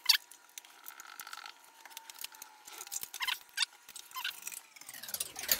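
Irregular small clicks and light metallic taps of screws and ceiling-fan blade hardware being handled and fitted by hand, with one sharper click right at the start.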